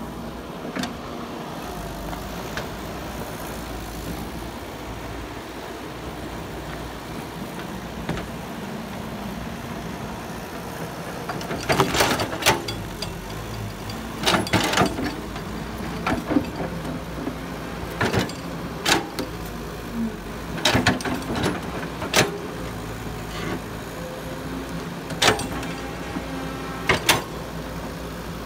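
Caterpillar tracked excavator's diesel engine running steadily as the toothed bucket digs into soil and roots. From about twelve seconds in, a dozen or so sharp knocks and clanks come a second or two apart as the bucket works.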